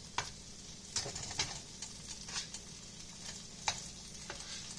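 Fried rice sizzling in a frying pan, with a utensil now and then scraping and clicking against the pan as it is stirred.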